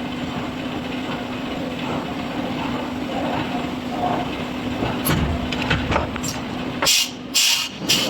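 Heavy industrial machinery running with a steady hum, then several short, loud hissing blasts near the end.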